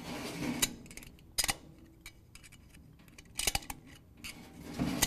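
Small screwdriver prying an L-shaped steel snap ring up out of its groove inside a transmission drum: scattered sharp metallic clicks and scrapes, a couple close together about three and a half seconds in and another just before the end.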